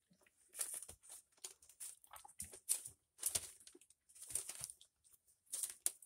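Newspaper bedding crinkling and rustling in irregular short bursts as young puppies shuffle about on it.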